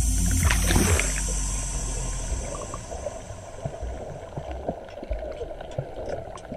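Muffled water sloshing and bubbling with scattered small clicks, heard through a waterproof camera housing as it dips below the sea surface.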